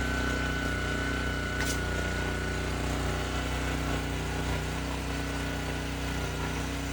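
Pressure washer's engine running steadily at an even speed.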